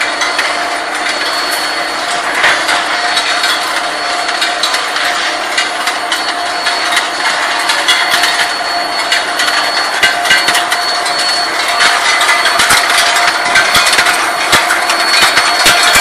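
Running steel ball hot-rolling line with its induction heating furnace: a steady industrial hum carrying a few held tones, with metal clanks and knocks that come more often toward the end.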